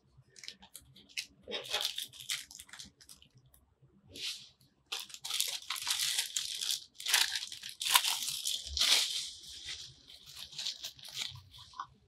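Clear plastic packaging bag crinkling and tearing as it is opened and a cardboard retail box is slid out of it. The crinkling comes in scattered bursts at first, then runs loud and dense through the middle before thinning to light rustles near the end.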